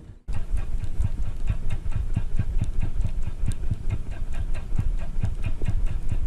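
Spinning reel being cranked steadily, its handle and gears making a quick, even ticking over a low rumble. It starts just after a moment of silence at the beginning.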